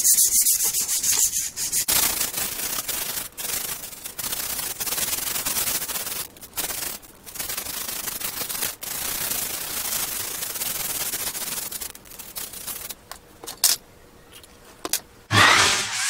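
Hand sanding: a piece of wood sandpaper rubbed back and forth in quick strokes over a rusty strip of metal pick stock to clean off the rust. The sanding thins to a few scrapes after about twelve seconds, and music comes in near the end.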